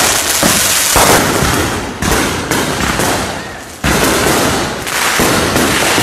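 Fireworks going off in a rapid series of loud bangs, about one a second, each one trailing off before the next.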